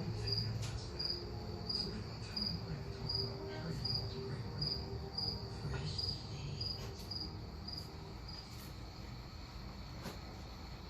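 A cricket chirping steadily, about two high chirps a second, with a few faint clicks and knocks of work underneath.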